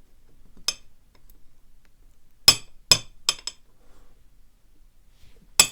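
Small metal clicks and clinks as key pins come out of a dismantled euro profile dimple lock cylinder and are set down. There are five sharp ticks: one about a second in, three in quick succession halfway through, and one near the end.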